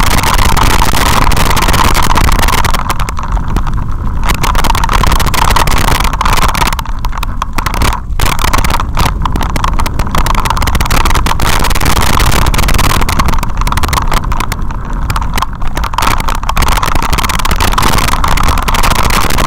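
Loud, constant rushing and rattling of a vehicle riding down a rough, rocky dirt trail, easing briefly about three to four seconds in and again around seven to eight seconds in.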